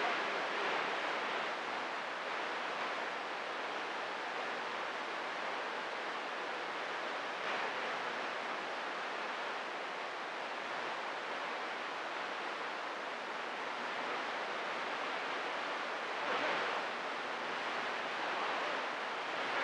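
Steady hiss of CB radio static between transmissions, with a slight swell about sixteen seconds in.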